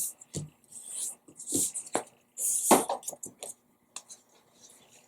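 Sheet of paper being folded and handled: irregular rustles and crinkles in short bursts, with a few light taps.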